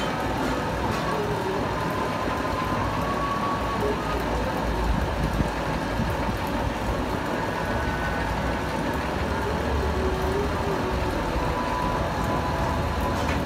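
Metal lathe running steadily, spinning a splined hydraulic pump shaft held between the chuck and a centre, with a low rumble and a faint gear whine.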